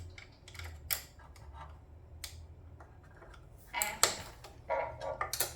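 Scattered metallic clicks of a ratchet with a 6 mm hex bit loosening the front fork's pinch bolts. A couple of single clicks come first, then busier runs of clicking near the end.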